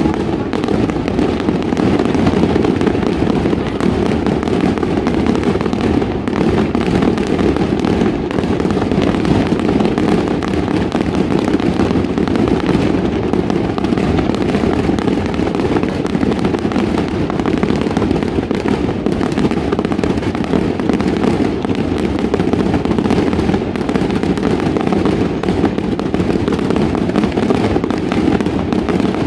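Aerial fireworks bursting in a dense, continuous barrage: many overlapping booms and crackles merge into a steady rumble with no pause.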